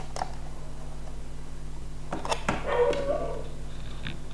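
Light clicks and taps of a small bolt being fitted by hand into the controller board's mount on the acrylic frame, over a steady low hum. About three seconds in, a brief wavering whine is the loudest sound.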